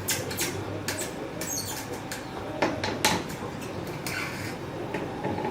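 A 3D-printed plastic stitching pony being handled and tightened: a series of light clicks and knocks from its plastic parts, with short high squeaks, the sharpest two clicks about two and a half and three seconds in.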